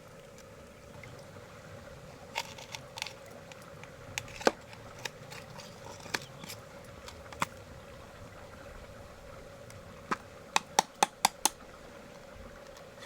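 Irregular sharp clicks and taps of small hard objects, with a quick run of about six clicks about ten seconds in, over a steady low hum.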